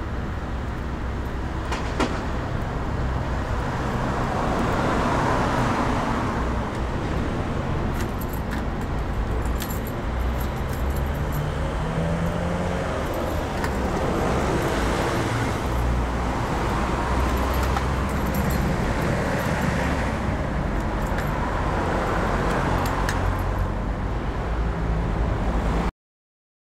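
Street traffic at night: vehicles driving past one after another, each swelling up and fading away over a low steady rumble, with a few light clicks among them. It cuts off abruptly to silence near the end.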